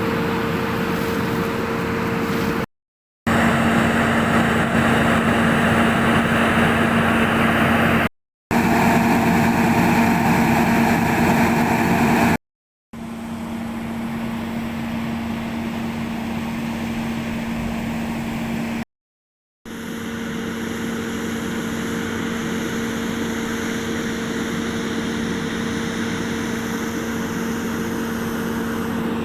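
A machine engine or motor running steadily at one unchanging pitch, interrupted by four brief silent breaks.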